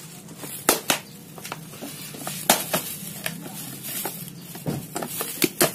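Iron crowbar prying at the plastic lid of a used car battery: a series of sharp cracks and knocks as the plastic casing gives, the loudest about two and a half seconds in and two close together near the end.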